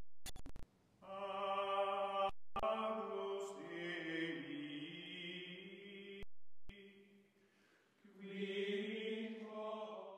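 Outro music of sung voices holding long, slowly sliding chant-like notes, breaking off about seven seconds in and starting again a second later.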